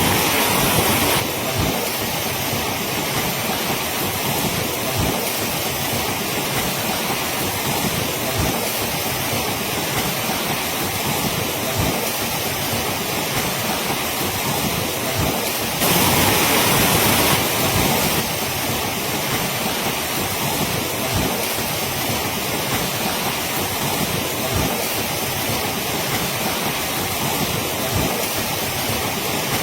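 Heavy rain pouring in a steady rush of water noise, with frequent short low thumps on the microphone. It swells louder briefly at the start and again about halfway through.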